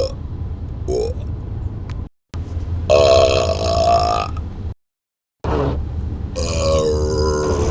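A man burping inside a moving car: a short burp about a second in, a long loud burp around three seconds in, and another long burp with a wavering pitch near the end. A steady low road rumble runs underneath, and the sound cuts out completely twice.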